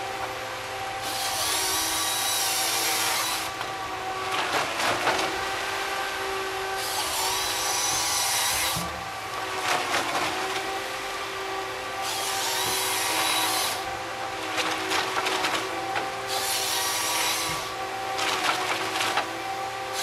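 Tigercat tracked harvester processing a log: the diesel engine runs steadily under hydraulic load while the harvesting head's chain saw cuts through the stem in repeated spells of one to two and a half seconds, about every four to five seconds. Snaps and cracks of wood come in between the cuts.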